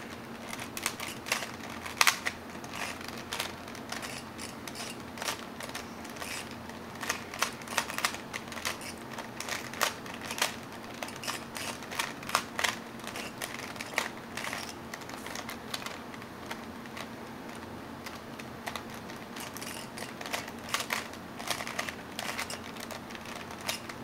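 Plastic Rubik's Cube layers clicking and clacking as they are turned rapidly by hand, in quick irregular runs with a few louder snaps.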